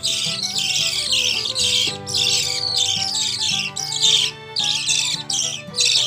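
Budgerigar chicks giving rapid, raspy calls in quick succession over background instrumental music.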